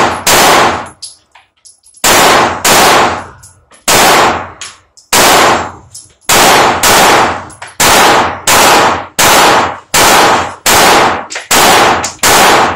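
A Glock 19X 9mm pistol firing a string of about sixteen shots, many of them quick pairs about half a second apart with short pauses between. Each loud crack trails off in a short echo.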